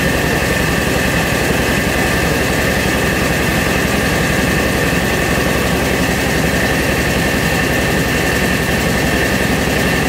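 Mobile rice mill running steadily while milling: a loud, unchanging machine noise with a fast, even low pulsing and a steady high whine on top.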